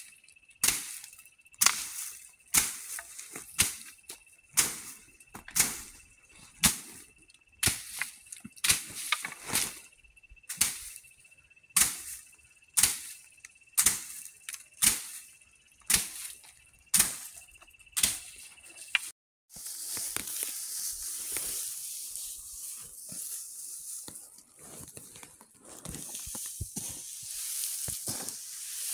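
A stick beating dry bean plants piled on a tarp to thresh out the beans: sharp whacks about once a second, with a faint steady high tone behind them. After a cut about two-thirds in, dry bean pods and chaff rustle steadily as a hand stirs through them.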